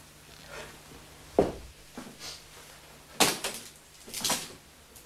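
A few sharp knocks and thuds, the loudest about three seconds in, with soft rustling between them: someone moving about and handling things in a small room.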